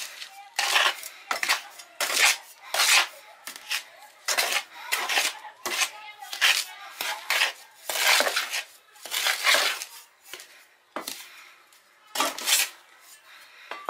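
Metal clanking and scraping in a run of short, irregular strokes, about two a second.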